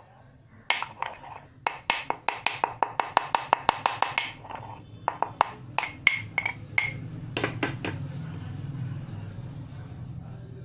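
A black peppercorn being pounded into powder: a rapid run of hard knocks, about five a second, thinning to scattered single taps after about four seconds, then a steady low noise.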